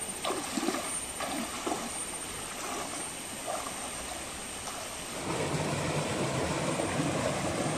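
Shallow stream water running over rocks, with small splashes as bare feet wade through it. About five seconds in, this gives way to the louder, steady rush of a small waterfall pouring into a rock pool.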